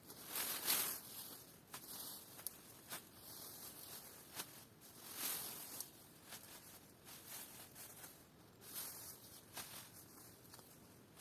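Intermittent rustling and crunching with a few light clicks, the loudest rustle about half a second in.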